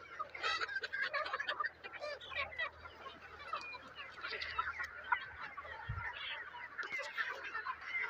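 A flock of chickens clucking and calling, with many short calls overlapping all the time.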